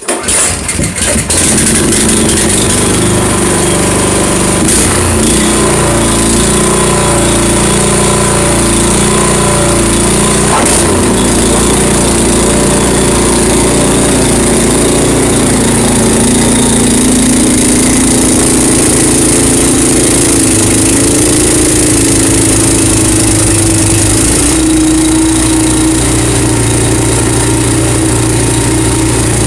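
Honda HSS1332 snowblower's single-cylinder engine starting and then running steadily at speed, with its note shifting a little a few times; near the end it is throwing snow.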